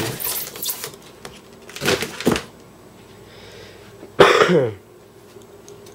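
A man coughs once, loudly, about four seconds in, the pitch falling as it ends. About two seconds in there are two shorter, noisy sounds, like a smaller cough or handling noise.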